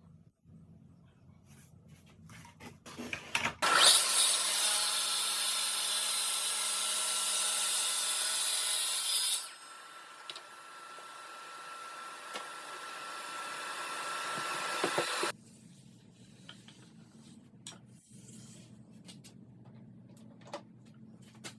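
Track saw ripping a board: a few clicks and knocks of handling, then the saw starts about four seconds in and cuts loudly for about five seconds. It then runs quieter for about six seconds before stopping suddenly, followed by more light knocks of handling.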